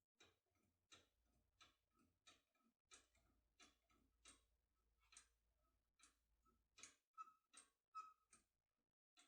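Faint, quick metallic clicks, about three a second, from a force key being worked back and forth in a Picard A2P / Heracles lock cylinder under light load, the way a key is rocked when impressioning.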